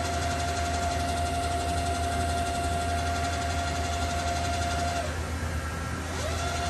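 Doosan DB-130C CNC horizontal boring mill running under power: a steady machine whine over a constant low hum. The whine cuts out about five seconds in and comes back with a quick rise in pitch near the end.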